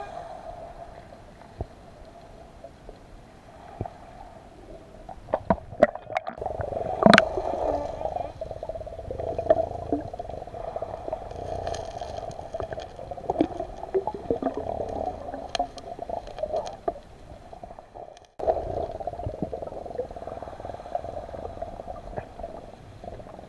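Muffled underwater sound with a steady hum and gurgling, broken by a cluster of sharp clicks and knocks about five to eight seconds in and scattered smaller clicks later, as hands work through seabed pebbles and sand.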